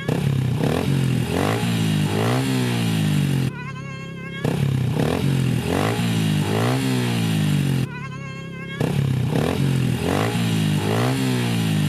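Small single-cylinder four-stroke engine of a Honda CRF110 pit bike being blipped and revved, its pitch sweeping up and down in quick rises. The same rev sequence repeats about every four and a half seconds, with a short quieter break between repeats.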